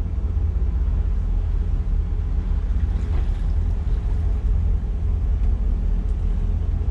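Twin 7.4-litre (454 cubic inch) big-block V8 MerCruiser inboard engines of a Sea Ray 330 Sundancer running under way, a steady deep rumble.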